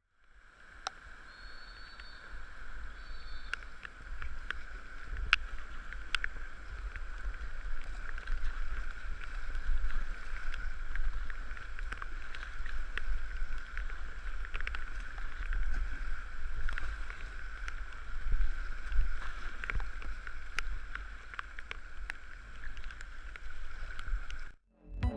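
Flood-swollen whitewater creek rushing steadily around a kayak, with scattered sharp knocks and splashes from the paddle strokes throughout.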